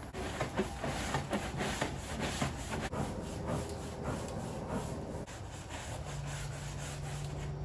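Long-handled scrub brush rasping back and forth over a golf cart's body in quick, uneven strokes, several a second. About six seconds in the strokes stop and a low steady hum comes in.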